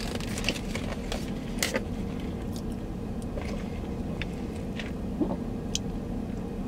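Steady low hum in a car cabin, with a few faint clicks and mouth sounds of sipping through a straw from a foam cup.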